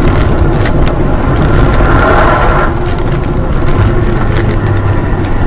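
Steady engine and road noise of a car in motion.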